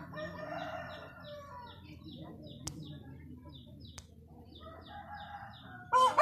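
Farmyard background sounds: a rooster crowing at a distance, once near the start and again near the end, over a small bird's high chirps repeating about three times a second. Two sharp clicks, one a little before the midpoint and one about two-thirds through.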